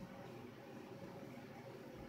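Faint steady hiss: room tone with no distinct event.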